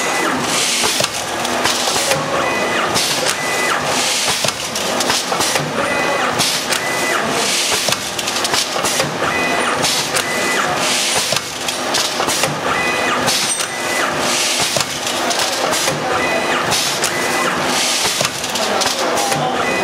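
Four-lane automatic sachet packing machine running at speed: its air-cylinder-driven sealing and cutting jaws cycle over and over. The result is a continuous rhythmic mechanical clatter with recurring surges of high hiss.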